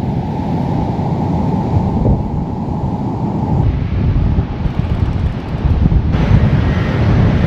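Heavy wind buffeting the microphone over surf breaking on the shore: a dense, steady rumble with no distinct events.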